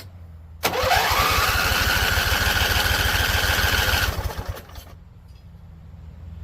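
A click, then the starter motor of a Husqvarna Z254 zero-turn mower cranks the engine for about three and a half seconds: a whine that rises quickly and holds steady, over fast, even compression pulses. It stops without the engine catching, which the owner takes for a flooded engine.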